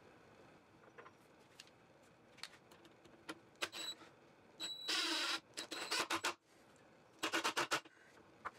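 Hand screwdriver driving a screw into a pine leg block: a few light clicks, then from about halfway several short bursts of scraping and squeaking as the screw turns into the wood.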